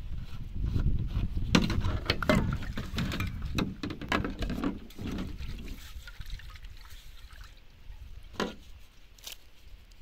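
Water sloshing and swishing in a metal pan as a gloved hand scrubs its inside, busiest in the first half and then dying away. A single sharp click comes near the end.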